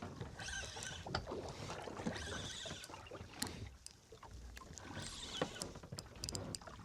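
Water slapping and washing against the hull of a small boat at sea, with scattered knocks and clicks from gear being handled on board.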